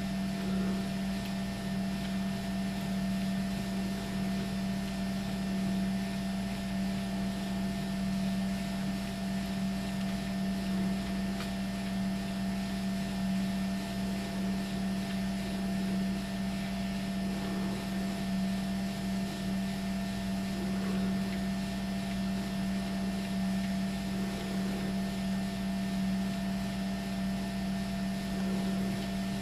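Motorized treadmill running at a steady speed: an even motor hum with the whir of the moving belt.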